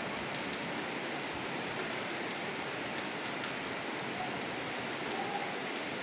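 Steady rushing of the Beas River in flood: fast, muddy floodwater pouring past in an even, unbroken noise.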